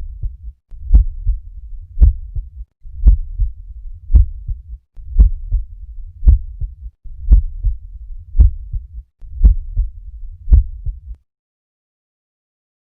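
Normal heart sounds auscultated at the cardiac apex: a steady lub-dub at a little under one beat a second, each beat a louder first sound followed by a softer second. The beats stop shortly before the end, leaving silence.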